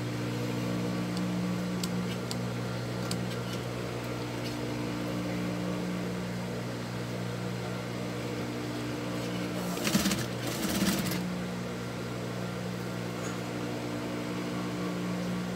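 Table-mounted industrial sewing machine, its motor humming steadily, with two short bursts of stitching about ten and eleven seconds in; these are the loudest sounds.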